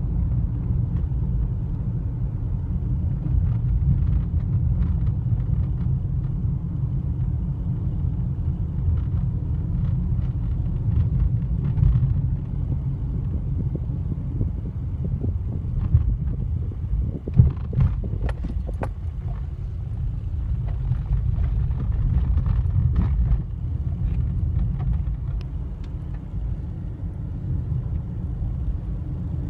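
Inside a moving car on gravel and rough country roads: a steady low rumble of tyres and engine, with scattered clicks and knocks from the uneven surface, several of them close together a little past halfway.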